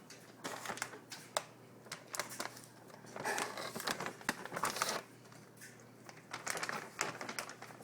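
Crinkling of a plastic treat bag being handled and opened, in several irregular spells of rustling and crackling.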